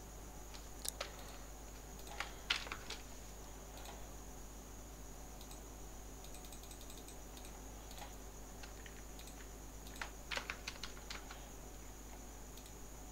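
Computer keyboard keys pressed a few at a time in scattered groups, the busiest run about ten seconds in, over a faint steady high-pitched whine.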